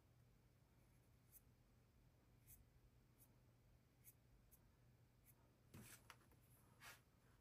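Faint strokes of a paintbrush on a small painting panel: a handful of soft scrapes and ticks as the brush dabs and drags oil paint, a little louder near the end.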